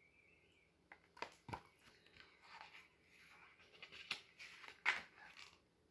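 Faint rustling and scattered clicks of a picture book being handled and its pages turned, with a sharper tap about five seconds in.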